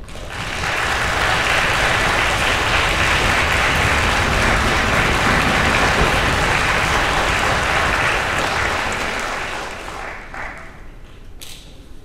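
Audience applauding: the clapping swells in over the first second, holds steady, then dies away about ten seconds in, leaving a few last claps.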